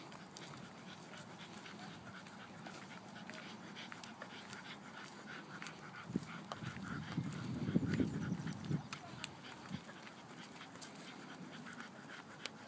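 Dogs panting as they walk on leads, with scattered light clicks and taps. A louder low rustling swell comes and goes from about six to nine seconds in.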